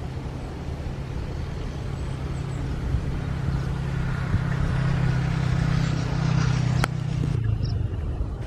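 Jet airliner engines passing during a landing or take-off, the noise swelling over several seconds and then dropping off sharply near the end.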